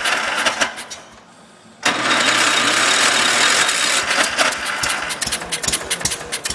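John Deere 140's Kohler engine being cranked by the starter on a hard cold start: one cranking run dies away, then about two seconds in the starter engages again. From about halfway the engine fires in irregular pops without catching.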